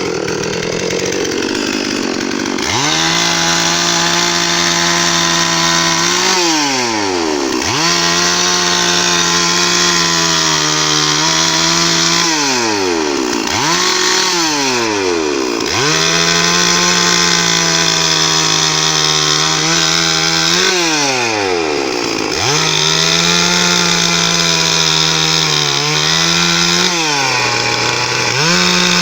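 Electric power drill running at a steady high speed. About five times its motor winds down in a falling whine and then quickly spins back up to full speed.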